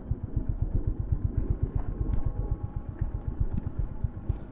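Honda H'ness CB350's single-cylinder engine running at a steady cruise, a quick even beat of low exhaust pulses under ride noise.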